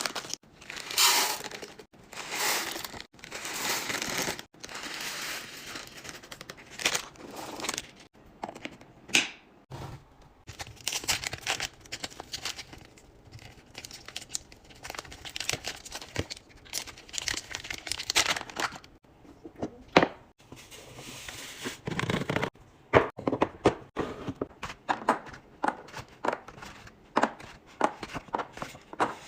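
Plastic food packaging crinkling and tearing as it is opened and handled, with frequent sharp clicks and taps of containers being set down, in short stretches that change abruptly from clip to clip.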